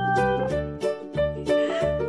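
Cheerful background music with plucked strings and a steady beat of about three beats a second.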